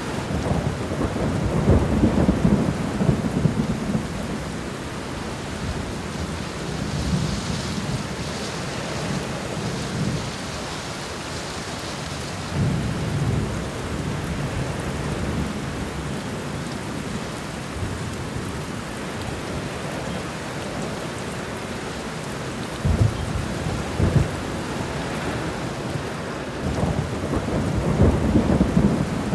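Thunderstorm: steady rain falling, with rolls of thunder rumbling several times, loudest in the first few seconds and again near the end.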